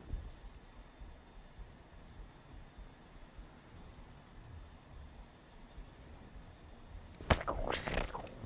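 Faint scratching and rustling of paper being worked by hand at a craft table. A little after seven seconds in there is a sharp click, then a short burst of louder rustling.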